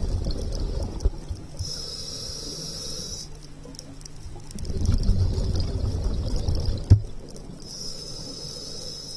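Scuba breathing through a regulator underwater: rumbling bursts of exhaled bubbles alternate twice with the hiss of an inhaled breath. A sharp click comes about seven seconds in.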